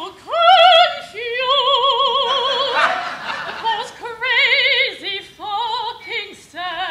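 A woman singing opera with a wide, strong vibrato: a string of short phrases of held notes, leaping up and down in pitch.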